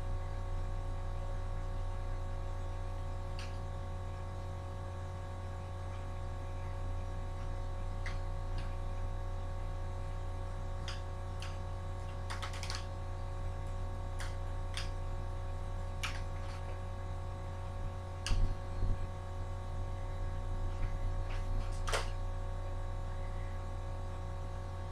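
A steady low hum with scattered light, sharp clicks throughout and two duller knocks about eighteen seconds in.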